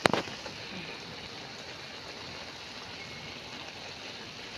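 Bottle gourd and shrimp stir-fry cooking in a metal wok with a steady watery hiss, with a single sharp click at the very start.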